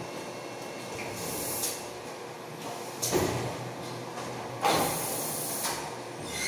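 Mouth noises of a man eating a hot siling labuyo chili pepper: three hissy puffs of breath, about a second in, about three seconds in, and a longer one near five seconds.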